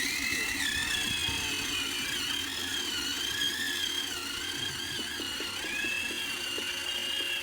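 High-pitched whine of a radio-controlled construction model's electric motor running, its pitch dipping and rising slowly, over a light mechanical rattle with scattered clicks.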